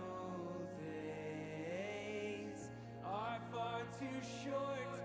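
Worship band music from a slow hymn: a held bass note under a gliding, singing melody line, with the bass stepping up to a higher note about halfway through.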